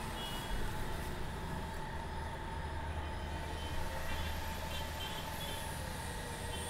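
Steady background rumble and hiss with a faint steady hum.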